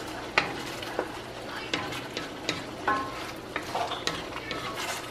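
Wooden spoon stirring a thick ground-beef and tomato sauce in a nonstick wok, with scattered soft knocks of the spoon against the pan over a steady sizzle of the sauce bubbling and spattering on the heat.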